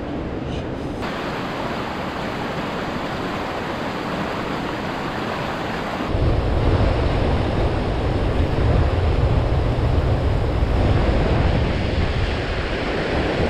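Mountain river rapids rushing steadily over rocks. About six seconds in, the rush turns louder and deeper.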